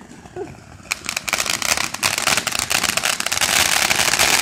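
Ground fountain firework spraying sparks with a crackle that starts about a second in and thickens into a dense, steady crackling.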